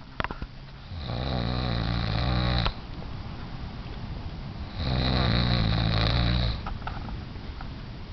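A person snoring hard: two long, loud snores, each about a second and a half to two seconds long and a few seconds apart, with quieter breathing between them.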